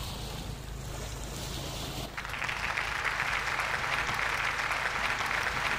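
Spinning fishing reel whirring steadily with a fine rapid crackle. It starts suddenly about two seconds in, while a fish pulls on the bent rod. Wind and water rumble low underneath.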